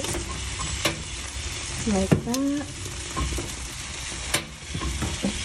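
Roasted pumpkin halves sizzling steadily on a hot parchment-lined baking tray, with a few sharp clicks and taps. The loudest tap comes about two seconds in, together with a brief sliding squeak.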